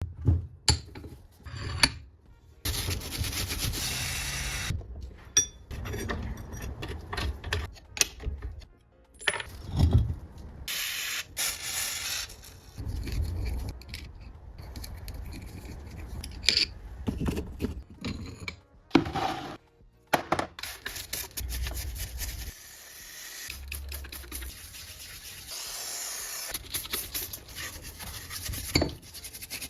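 A string of short workshop sounds from restoring a rusty cast-iron bench vise: scraping, rubbing and brushing on metal, broken by sharp clicks and knocks, changing abruptly from one to the next, with background music.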